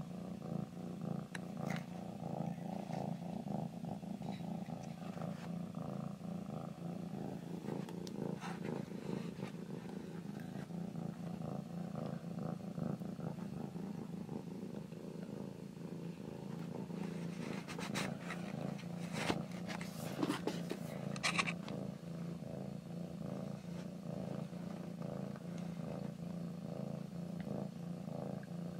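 Young tabby cat purring steadily, a low pulsing rumble close to the microphone. A short cluster of sharp clicks and rustles comes about two-thirds of the way in.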